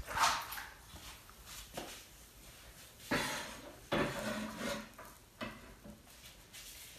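Kitchenware clattering: a large stainless-steel wok lid knocks against the stove at the start, then scattered knocks and scrapes as things are handled on the counter.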